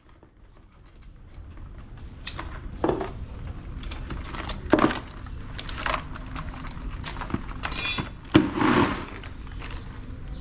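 Live crabs being handled and tied: irregular clicks, knocks and scraping as hard shells are gripped and knock together, spaced a second or two apart, with the loudest scrape near the end.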